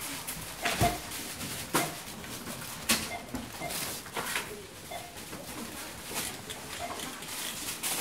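Supermarket checkout sounds: items knocking and clattering at the counter every second or so, with short, faint scanner beeps and a busy store background.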